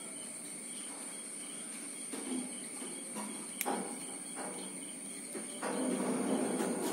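Insects shrilling steadily in a high tone, with one sharp click about halfway through and low handling noise rising near the end.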